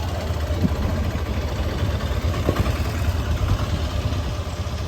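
Motorcycle engine running steadily while riding, a continuous low rumble with road and air noise.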